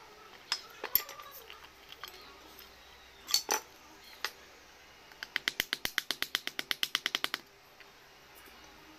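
A steel chisel cutting into teak gives a few sharp clicks. Then comes a quick, even run of about eighteen sharp clicks, some eight a second, lasting about two seconds.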